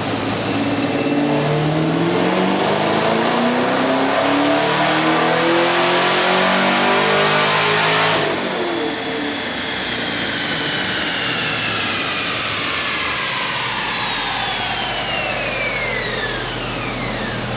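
Edelbrock-supercharged LT1 V8 making a full-throttle dyno pull: the revs and the blower whine climb steadily for about eight seconds, then the throttle shuts abruptly and the whine falls away as the engine coasts down.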